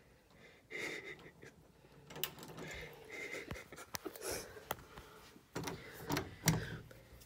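Muffled heavy breathing and gasping from someone sitting in an ice bath, heard through a closed door, with a few faint clicks. The gasping is the body's response to the cold water.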